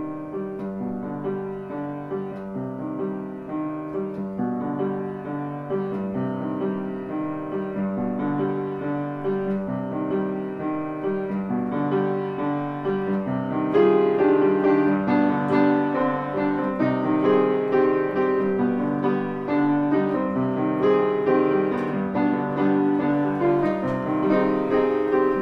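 Instrumental piano music: a steady, even run of notes, getting louder about halfway through.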